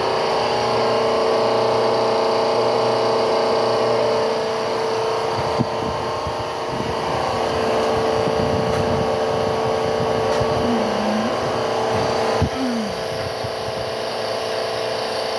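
Hydraulic pump of a 250-ton tire press running steadily with a whine while the ram forces a press-on forklift tire onto its wheel. Two sharp clicks, one about five and a half seconds in and one near twelve and a half seconds.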